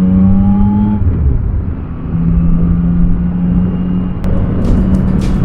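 Yamaha Tracer 9's 890 cc inline-three engine running under way, with wind rushing past. The engine's tone rises over the first second, breaks off as if for a gear change, then comes back steady at a slightly lower pitch and steps up again near the end.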